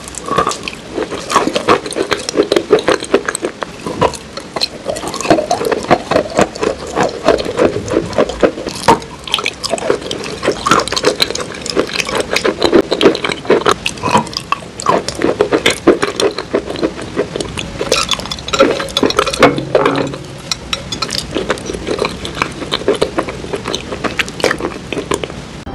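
Close-miked eating: a bite into a creamy dessert bar coated in black cookie crumbs, then chewing and mouth sounds, a dense, continuous run of small clicks and smacks.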